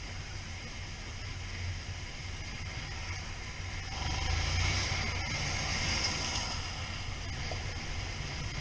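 Riding noise from a Suzuki SV650 motorcycle: a steady low rumble from its V-twin engine under wind and road noise. The noise swells about four seconds in for two or three seconds, then settles.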